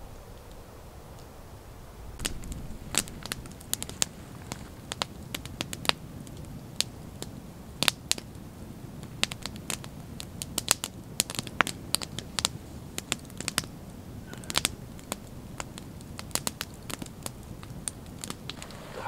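Campfire of pine sticks crackling, with sharp, irregular pops, several a second, from about two seconds in.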